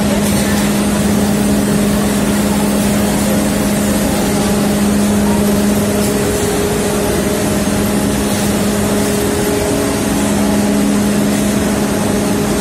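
Sugar-mill bagging and conveyor machinery running: a loud, steady mechanical din with a continuous low hum under it.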